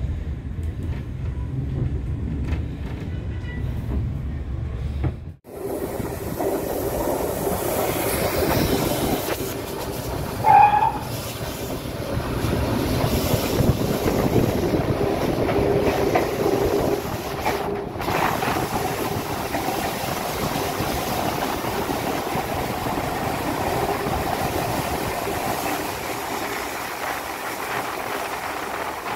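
Steam-hauled railway carriage running along the track, a steady rumble that grows louder and fuller after about five seconds as the train enters a tunnel. A short, high whistle note sounds once about ten seconds in.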